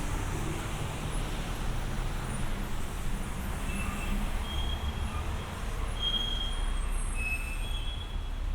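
City street traffic: a steady low rumble of passing vehicles, with several short high squeals in the middle.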